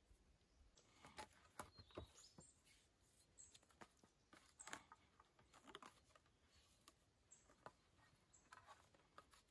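Faint, scattered clicks and rustles of thin wooden poles and string being handled as the poles are lashed together into a flat panel.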